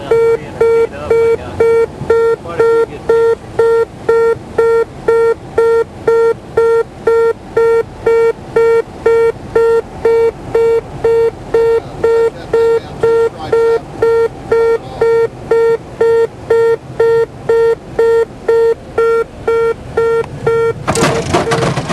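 Cessna 182RG landing-gear warning horn beeping steadily, about two beeps a second: it sounds because the throttle is back on final with the gear still up and not lowered. Near the end a sudden loud rushing noise joins in under the beeps.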